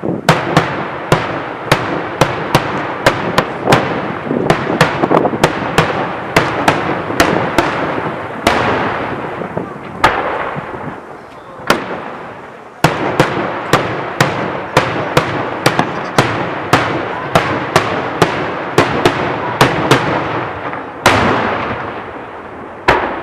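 Aerial firework shells of a daytime display going off in rapid succession, loud bangs about two or three a second with echoing rumble between them. The run thins to a few single bangs a little past the middle, picks up again, then slows to single bangs near the end.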